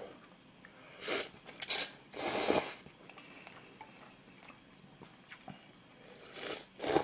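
Instant ramen noodles being slurped off chopsticks in several short, noisy slurps. The longest comes about two and a half seconds in, and another comes near the end.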